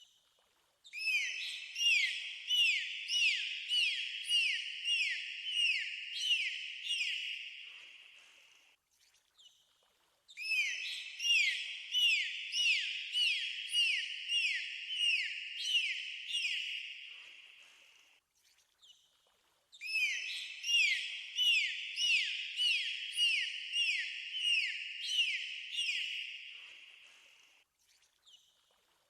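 Dolphin whistles: short calls repeated about twice a second, each rising and then falling in pitch. They come in three runs of about eight seconds, separated by short pauses.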